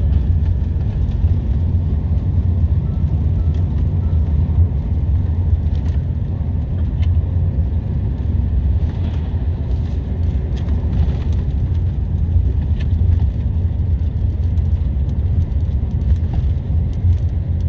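Steady low rumble of a moving road vehicle, engine and tyre noise heard from inside it, with scattered faint clicks and rattles.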